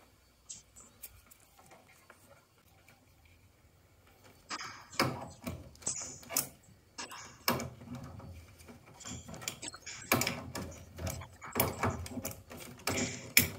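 Metal clicks, knocks and clatter of a spanner working the union nuts on a combi boiler's gas valve. After a quiet start the handling begins about four and a half seconds in and goes on in uneven bursts.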